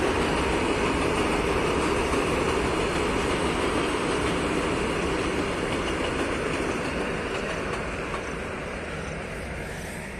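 Loaded freight train of open wagons passing, its wheels rumbling steadily on the rails. The sound holds level for about six seconds and then fades gradually as the last wagons draw away.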